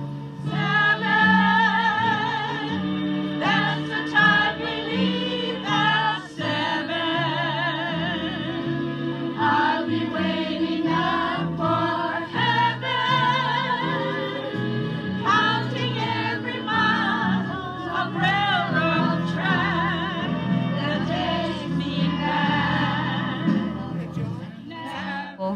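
A vocal group singing a song with vibrato over a steady instrumental accompaniment.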